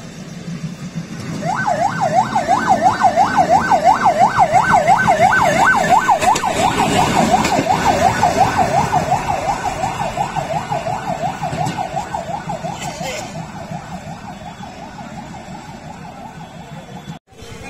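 Bangladesh Railway motor trolley passing on the rails, sounding a fast warbling electronic siren at about three cycles a second over a low rumble. The siren is loudest as the trolley passes, fades as it moves away, and cuts off abruptly near the end.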